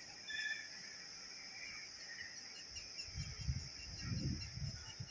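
Outdoor ambience of insects shrilling steadily and birds chirping. Irregular low rumbles come in during the second half.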